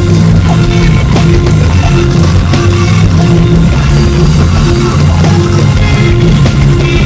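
Loud rock music with guitar and drums, a short riff repeating steadily.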